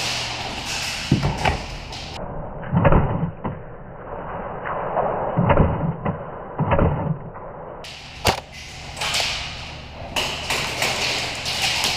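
Irregular thumps and knocks, about half a dozen spread over several seconds, with a sharp crack about eight seconds in, over steady background noise.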